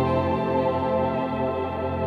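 Soft, slow background music: held keyboard or organ-like chords with sustained notes.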